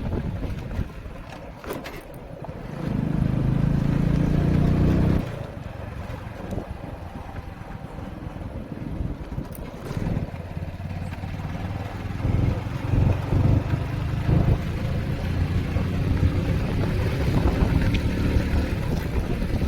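Motorcycle engine running while being ridden, with wind buffeting the microphone. The engine gets louder for about two seconds starting about three seconds in, then settles back to a steady run.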